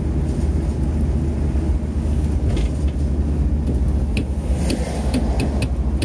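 Inside the cab of a moving VW T4 Transporter van: steady low rumble of engine and road noise, with a series of sharp rattles starting about two-thirds of the way in, several in quick succession.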